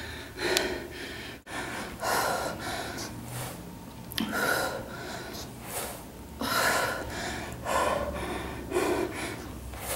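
A woman breathing hard during floor exercises, with sharp gasping breaths about once a second.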